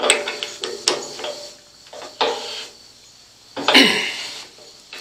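Metal clicks and clinks from a drill press's keyed chuck and a straight carbide-tipped router bit being handled and fitted, in four or so short bursts with pauses between.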